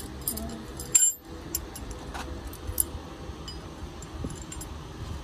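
Light metallic clinks and taps of tools and metal parts being handled, with one sharper, ringing knock about a second in, over a steady low background noise.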